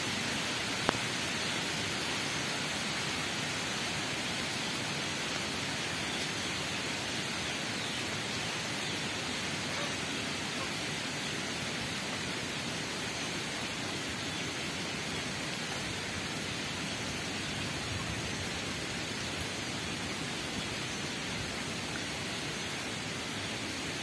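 Steady, even outdoor hiss without any clear pitch, with one sharp click about a second in.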